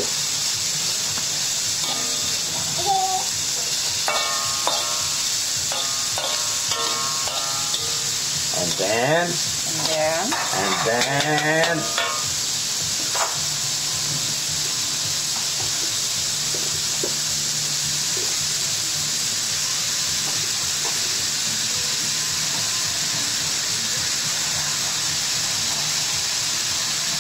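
Diced vegetables and meat sizzling steadily in an aluminium wok, stirred with a metal spatula.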